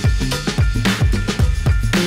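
Background music with a steady, fast drum beat.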